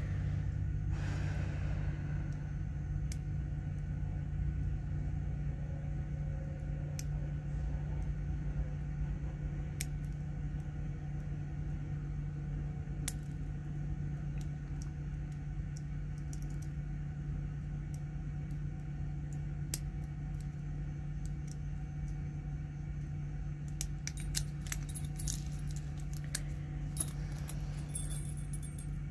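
Faint metallic clicks and scrapes of a pick and tension wrench working in a laminated steel padlock, over a steady low hum. Near the end comes a cluster of sharper metal clinks as padlocks and picks are handled and set down.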